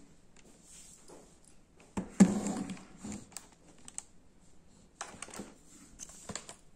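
Plastic case of a Lenovo laptop knocking and clicking against a wooden table as it is handled and turned over: one sharp knock about two seconds in, then scattered lighter clicks and rattles.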